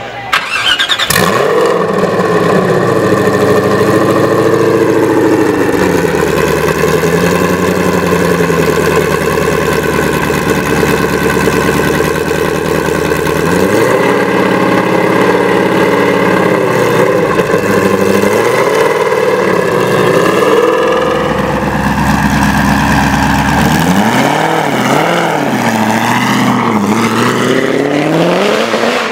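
Ford GT's 5.4-litre supercharged V8 starting up, catching with a sudden loud burst about half a second in. It then runs loud and steady, and in the second half it is revved with repeated throttle blips that rise and fall in pitch.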